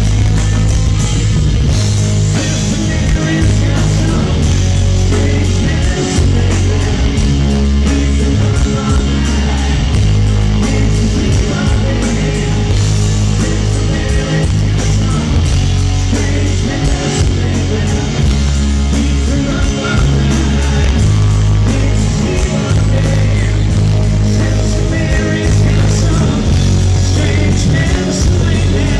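Live rock band playing loud: electric guitars and drums over a heavy bass line.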